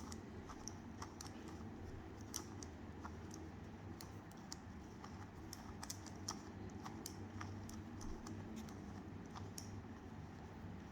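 Faint, irregular clicking of a 2x2x2 Rubik's Cube's plastic pieces as the cube is turned through a solving sequence.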